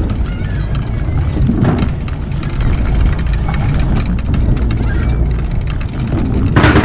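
Scooter rolling along a wooden dock: a steady low rumble of the wheels over the planks, with small clicks at the board joints and wind on the microphone. A sharp knock comes near the end.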